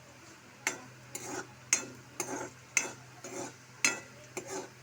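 Spoon stirring a tempering of mustard seeds and red chillies in oil in a small metal pan: sharp knocks against the pan about once a second, each followed by a short scrape.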